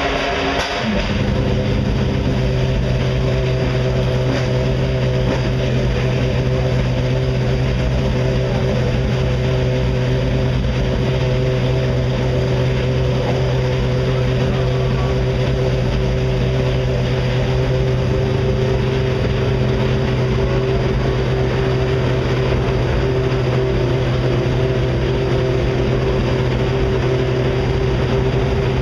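Ferrari 458 Italia GT2 race car's V8 engine running at a steady warm-up idle, an even drone that holds one pitch without revving.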